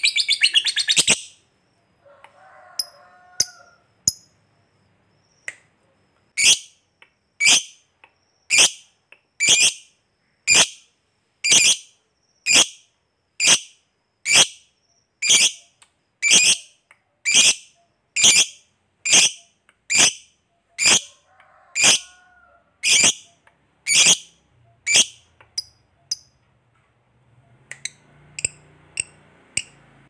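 Lovebird calling: a rapid chattering trill that breaks off about a second in. After a pause comes a long run of sharp, high single calls at about one a second, which thin out to a few near the end.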